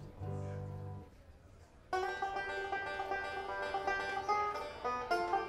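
After a few low held notes and a short lull, a bluegrass-style string band with banjo, mandolin, guitar, upright bass and snare drum comes in loudly about two seconds in, the picked banjo to the fore.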